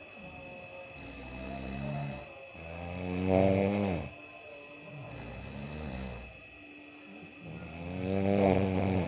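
A man snoring loudly in his sleep: two strong snores about five seconds apart, one about three seconds in and one near the end, with quieter snoring breaths between them. He keeps snoring with an anti-snoring device fitted.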